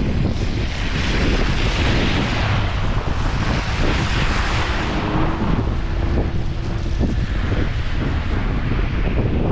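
Blizzard wind buffeting the microphone in a steady low rumble, with a rushing hiss that swells and fades over the first five seconds.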